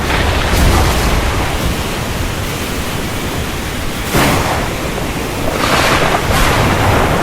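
Thunderstorm: a steady roar of heavy rain and wind over a low rumble, with a sudden louder burst about four seconds in and further surges near six seconds.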